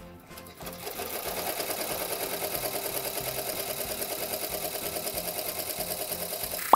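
Ricoma 15-needle embroidery machine starting up and stitching at an even, rapid rate. It runs at 600 to 700 stitches a minute, sewing lettering through a thick nylon dog collar. The stitching builds up in the first second, then holds a steady, fast rhythm.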